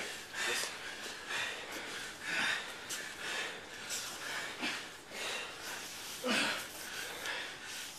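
Two grapplers breathing hard from exertion while wrestling on the mat: short, noisy breaths roughly once a second.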